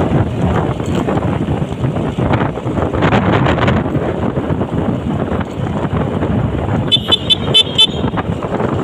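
Steady wind rushing over the microphone while riding, broken about seven seconds in by a rapid run of about five short, high-pitched horn beeps.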